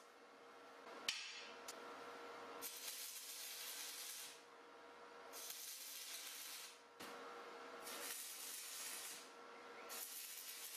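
Stick-welding arc frying and crackling on steel pipe in runs of one to three seconds, struck and broken several times, with a sharp snap at the first strike. A faint steady hum runs underneath.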